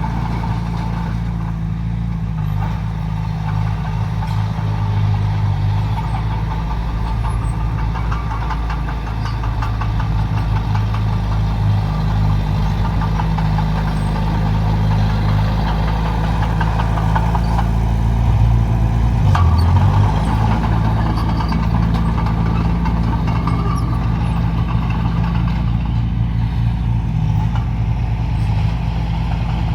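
Heavy diesel engine of earthmoving machinery running steadily, its pitch dipping briefly and recovering a little past the middle.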